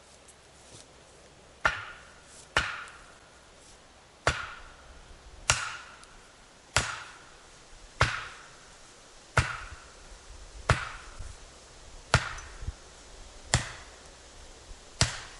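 An axe striking wood in steady, even blows, eleven in all, a little over a second apart, starting about two seconds in. Each blow is a sharp knock with a short ringing tail.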